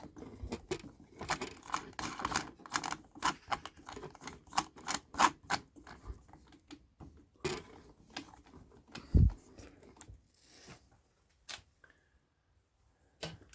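Wooden stock and tools being handled by hand: a run of irregular clicks and taps, with one dull knock about nine seconds in.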